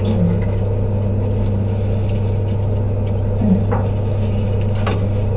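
Steady loud hum of machinery inside a saturation diving chamber, with a couple of short knocks, the louder about five seconds in, as a diver climbs through the round connecting hatch.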